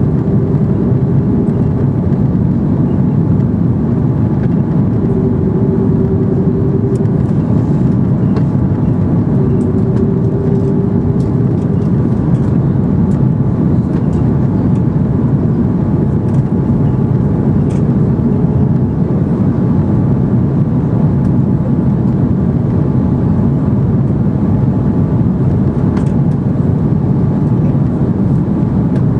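Airbus A330 cabin noise while descending to land: a steady low rumble of airflow and engines, with a faint hum that comes and goes several times.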